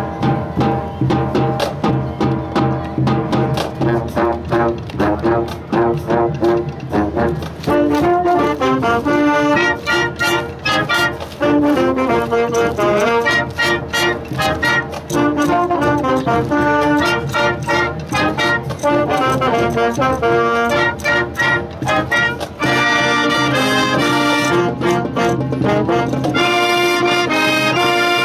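Junior high school marching band playing: brass (sousaphones, trumpets, trombones) and saxophones over a steady drum beat, the sound growing fuller and brighter near the end.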